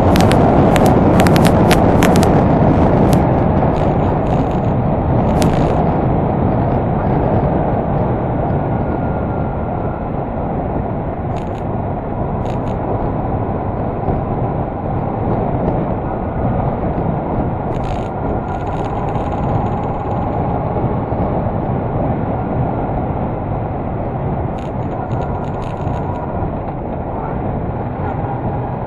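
Riding noise from a moving Honda Deauville NT650V: wind rushing over the microphone mixed with the motorcycle's V-twin engine running steadily. A quick run of sharp clicks comes in the first few seconds, with a few fainter ticks later on.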